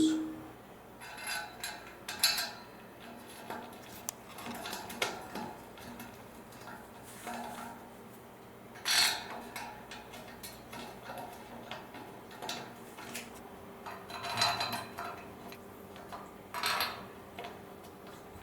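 Scattered light metal clinks, clicks and scrapes as a panel is screwed onto a steel furniture frame by hand: screws and a small tool tapping against the metal. The clinks come in a few small clusters, the louder ones near the middle and toward the end.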